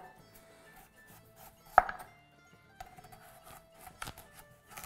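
Chef's knife slicing through a celeriac onto a wooden cutting board: mostly faint cutting and scraping, with one sharp knock of the blade on the board a little under two seconds in and a few quieter ticks later.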